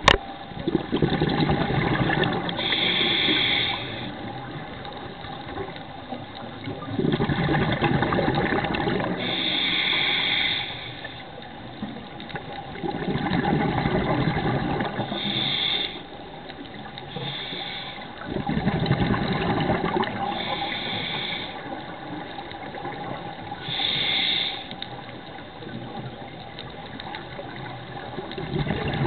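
Scuba diver breathing through a regulator underwater: a long bubbling exhale followed by a short hissing inhale, repeating about every five to six seconds.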